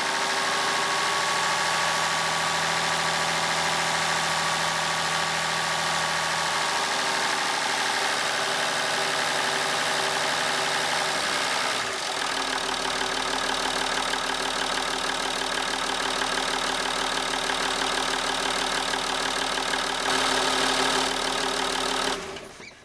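Opel Omega 2.5 DTI's straight-six turbodiesel engine idling steadily on fresh oil. Its tone shifts about halfway through, and it cuts off sharply near the end.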